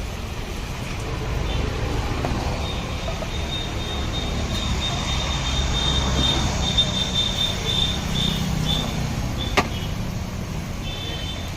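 Street traffic running by: a steady low rumble that swells mid-way, with a thin high pulsing tone for several seconds and one sharp click near the end.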